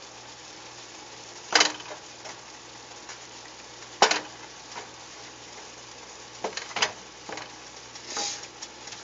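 Black plastic spatula stirring asparagus in a metal frying pan, knocking and scraping against the pan with sharp strokes, the loudest about one and a half and four seconds in and a run of lighter ones near the end. Under it the garlic sauce simmers with a low, steady sizzle.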